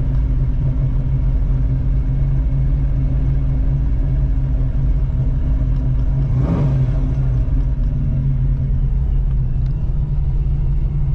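1985 Oldsmobile Cutlass Supreme's freshly fitted carburetor engine idling steadily while still cold and warming up, at an idle speed that sounds about right. About six and a half seconds in there is a brief swell of rushing noise.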